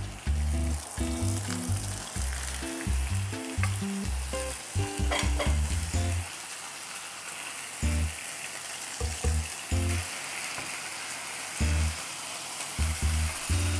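Chicken-breast rolls sizzling in hot oil in a non-stick frying pan as their surface browns, a steady hiss, with a few brief clicks about five seconds in. A low bass line of background music comes and goes underneath.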